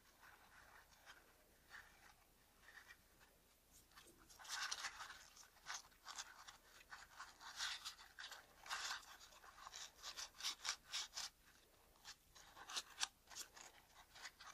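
Glass-cleaning wipe rubbed and crinkled around a small camera lens element by gloved fingers, wiping haze off the glass: quick, uneven rustling strokes that pick up about four seconds in.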